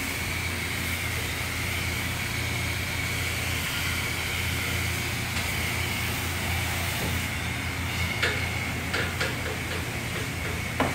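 Self-serve car wash high-pressure wand spraying water: a steady hiss with a low hum underneath, and a few light clicks near the end.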